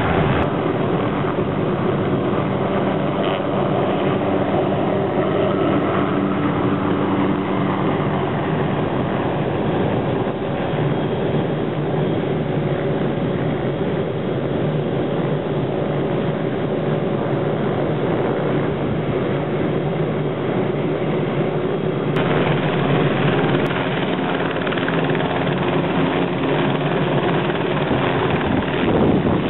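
Helicopter rotors and turbine engine running steadily as a black MD 500-series helicopter lifts off from a parking lot and flies away. About three-quarters of the way through, the sound changes suddenly to a second helicopter running at lift-off.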